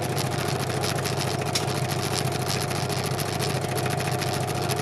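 Scroll saw running steadily, its reciprocating blade cutting through a wooden board.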